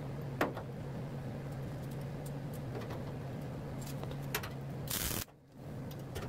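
Steady low hum with a few light clicks of steel locking-pliers clamps being handled and moved along a sheet-metal flange. A short burst of noise about five seconds in, then the sound cuts out briefly.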